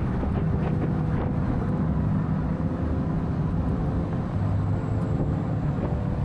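A vehicle's steady low rumble of engine and road noise, with a faint engine hum running through it.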